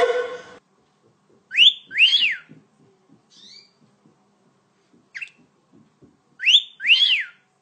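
A two-part wolf whistle, a rising sweep then an up-and-down arching note, given twice a few seconds apart. A few short faint chirps come between the two.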